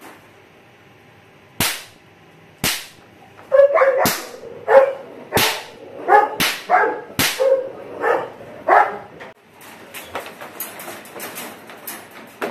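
Several sharp knocks or bangs about a second apart, test noises for a puppy's sound desensitization, with a dog barking repeatedly through the middle of the run.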